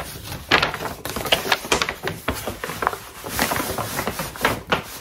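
Stiff paper packaging rustling and crinkling as hands dig into a paper mailer and pull out a folded cotton dress: a run of irregular crackles and scrapes with no steady rhythm.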